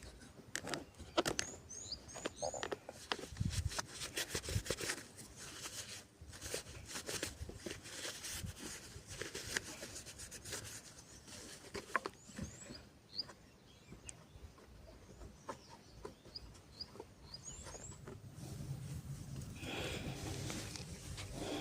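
Scattered light clicks and knocks of hands and tools working on a lawnmower, with short high chirps of birds now and then. Near the end a rubbing, scraping noise begins.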